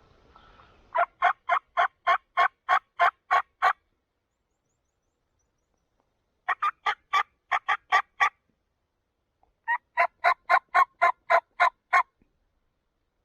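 Hen-turkey yelping on a hunter's turkey call: three runs of about eight to ten evenly spaced notes, a pause of a few seconds between runs, calling to a gobbling tom.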